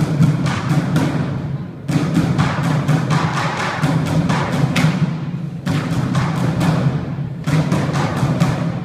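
Percussion music built on drums: quick runs of drum strokes in phrases, each breaking off briefly before the next begins.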